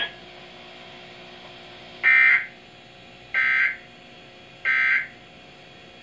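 Three short bursts of EAS/SAME digital data tones from weather alert radios, about 1.3 s apart, over a faint steady hum: the End of Message code that closes a weather radio alert broadcast.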